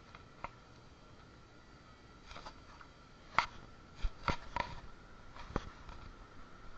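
A handful of sharp clicks and taps, one near the start and a tight cluster in the middle, the loudest about halfway through, over faint room noise with a thin steady high hum.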